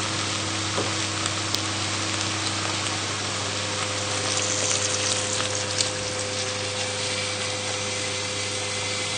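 Beef, vegetables and flour sizzling steadily in a hot enamelled cast-iron casserole, with a few clicks of a wooden spoon. Stock is poured in from a jug a few seconds in, and the sound gets a little brighter and louder for a couple of seconds.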